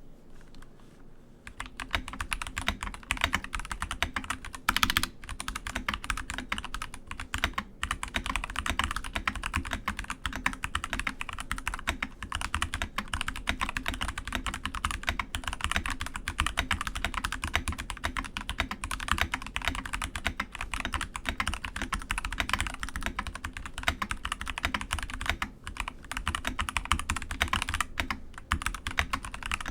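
Keychron V3 TKL mechanical keyboard with brown switches being typed on quickly and continuously, a steady stream of key clacks starting about a second and a half in.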